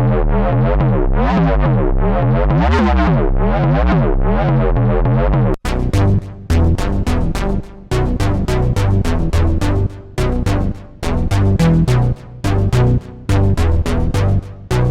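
SynthMaster One software synthesizer presets playing riffs. First a sustained patch whose filter sweeps up and down in repeated waves, then, about five and a half seconds in, a new patch plays a choppy pattern of short notes over a bass line.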